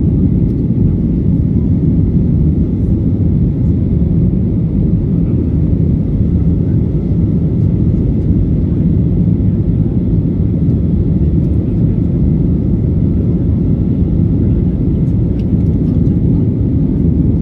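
Steady low rumble of an airliner's engines and rushing air, heard from inside the passenger cabin, with no change in pitch or level.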